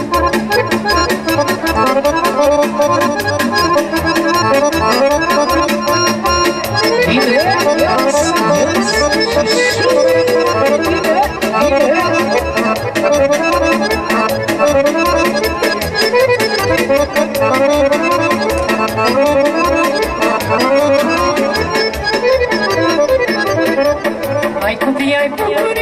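Amplified Romanian folk hora music from a keyboard through PA speakers: an accordion-voiced melody over a steady, even dance beat.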